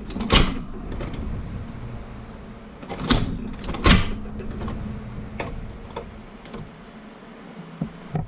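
Cowboy Outlaw hand-operated leather stitching machine driving its needle through thick holster leather. Three loud strokes, about half a second in, at three seconds and near four seconds, with lighter clicks between.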